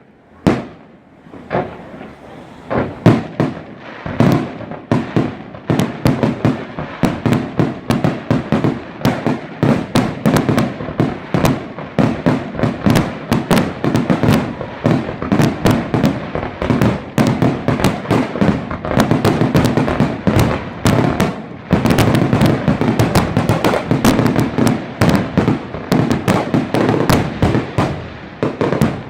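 Fireworks going off in a rapid barrage of bangs and crackling bursts. It starts with a few scattered bangs and becomes a dense, almost unbroken volley after a few seconds.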